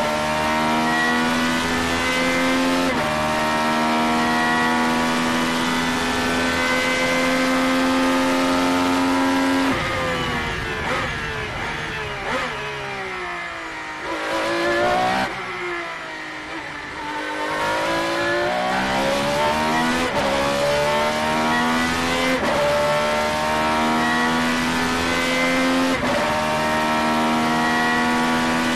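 Ferrari 333SP's 4.0-litre naturally aspirated V12 heard from the cockpit, running at high revs with an upshift about three seconds in. About ten seconds in the revs fall away through braking and downshifts for a corner, then climb again through several quick upshifts under full acceleration.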